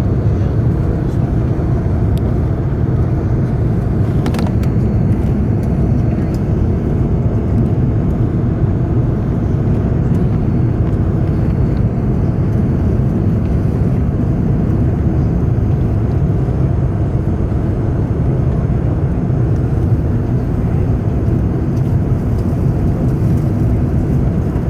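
Steady low rumble of an Airbus A380-800's Rolls-Royce Trent 900 jet engines and airflow, heard inside the upper-deck cabin during takeoff or the early climb.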